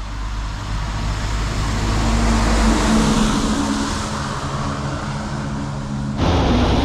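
Heavy truck driving past on a wet road: tyre hiss on the wet asphalt over a low engine drone, swelling and then easing off. About six seconds in it cuts suddenly to a steady rush of wind on the microphone.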